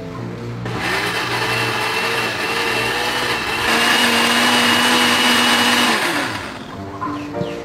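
Countertop blender motor switches on about a second in and runs with a steady whine while it purées chopped vegetable chunks to a smooth liquid. It gets louder about halfway through, then winds down with a falling pitch near the end.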